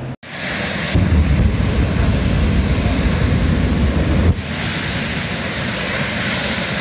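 Jet dragster's turbojet engine running loudly with a steady high whine, its afterburner lit and throwing flame. The sound briefly drops out just after the start, and the level steps down about four seconds in.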